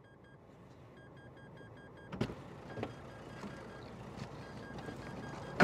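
A person climbing into a car's driver's seat through the open door: a sharp knock about two seconds in, then smaller knocks and rustling. A faint electronic beep repeats in short pairs through the first couple of seconds.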